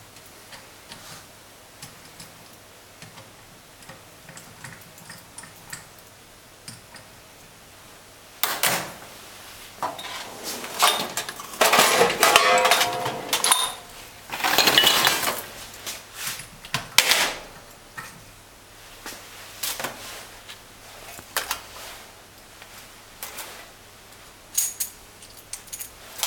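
Faint ticks of a screwdriver working on the unit pump, then metal diesel injectors and pump parts clattering and clinking against a stainless steel workbench and tray. The clatter is loudest for several seconds about a third of the way in, with scattered single clinks after.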